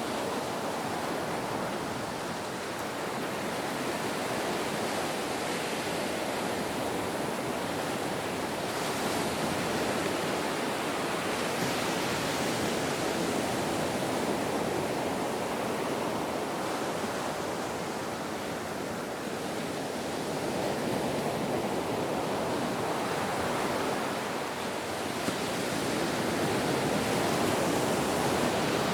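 Ocean waves: a continuous rush of surf that slowly swells and eases, louder about ten seconds in and again near the end.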